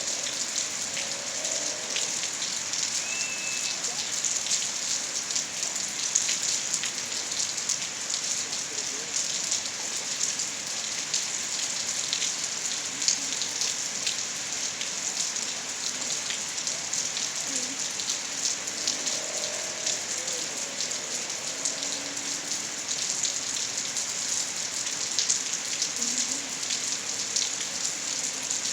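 Steady rainfall, an even hiss scattered with many sharp ticks of single drops striking close by.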